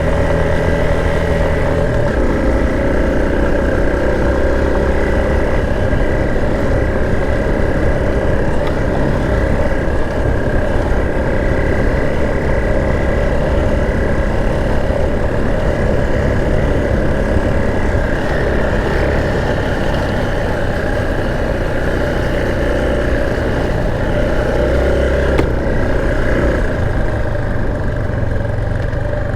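Motorcycle engine running under steady load, held at a constant pace while riding through soft sand.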